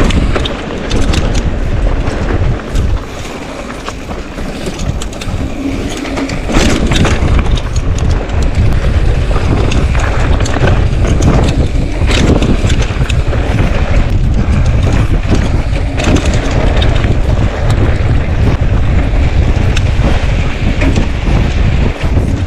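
Mountain bike riding fast over a rough dirt trail: heavy wind buffeting on the microphone with rattling and knocks from the bike over the ground, louder from about six seconds in.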